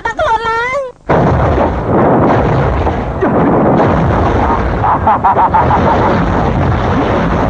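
A woman's high, wavering wail for about a second, then an abrupt, loud, sustained blast-like roar: a film fight sound effect like an explosion.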